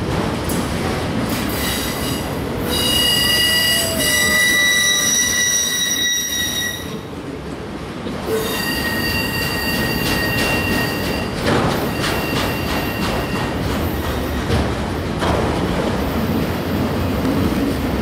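Autorack freight cars rolling past close by, a steady rumble with clicks of steel wheels over the rail. Twice the wheels squeal in high, steady tones for several seconds.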